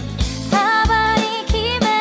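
Upbeat Korean pop song with a steady drum beat. A singing voice carries the melody from about half a second in.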